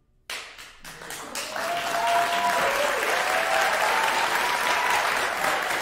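Audience applause breaking out suddenly: a few scattered claps about a third of a second in, growing into full, steady applause within a couple of seconds.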